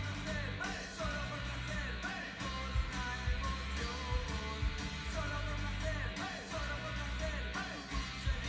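A song with singing and guitar played through a hi-fi system driven by a Sony active subwoofer, with strong, steady bass.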